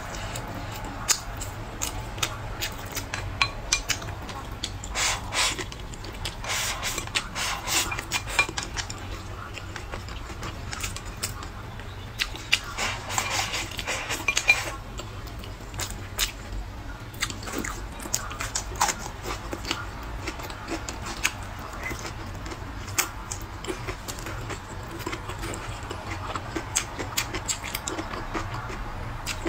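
Wooden chopsticks clicking and scraping against a ceramic bowl as rice is eaten from it, with chewing in between. A low steady hum runs underneath.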